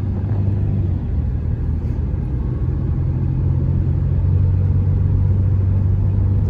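Steady low drone of engine and road noise inside a moving car's cabin, growing slightly louder in the second half.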